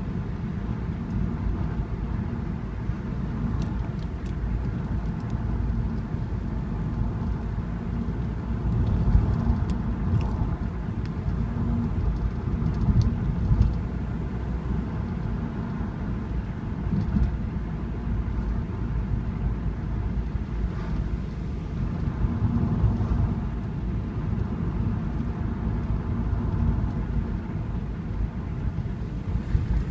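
Car driving, heard inside the cabin: a steady low rumble of engine and tyres that swells now and then, with a few faint clicks and rattles.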